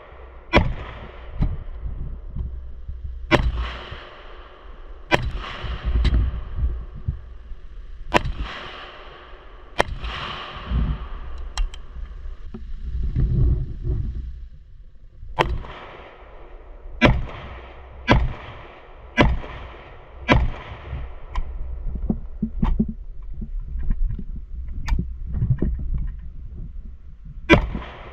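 Semi-automatic AK-pattern rifle firing single shots at a steady pace, about one every second or so, with a pause near the middle. Each shot is a sharp crack followed by a short echo, over a low rumble of wind on the microphone.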